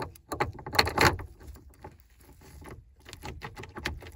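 Toyota Corolla ignition lock cylinder, key inserted, being worked into its steering-column housing: a run of irregular small clicks and rattles of the key, keyring and plastic trim, loudest about a second in.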